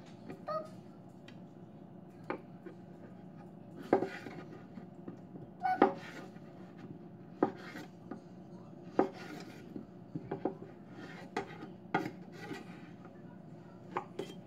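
Kitchen knives cutting strawberries on a wooden cutting board: irregular sharp knocks of the blades striking the board, one every second or two.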